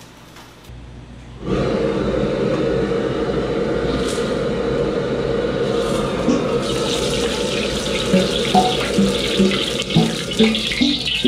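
Steady rushing noise of a commercial Chinese wok range, starting about a second and a half in. From about eight seconds in it is joined by light clinks of a steel ladle against the wok as oil is swirled around to coat it.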